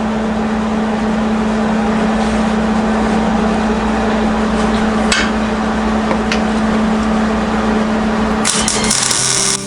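Steady machine hum with an even noise beneath it, light clicks about five and six seconds in, and a short bright hissing burst near the end.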